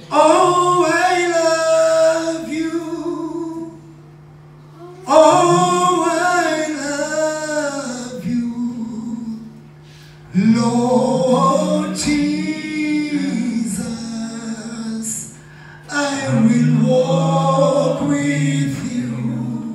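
Male voice singing a worship song through a microphone and PA, unaccompanied, in four long phrases with short pauses between them, over a steady low hum.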